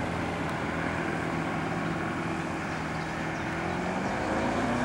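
Tohatsu 140 hp inline four-cylinder two-stroke outboard motor running steadily, its pitch rising over the last second or so as it picks up revs.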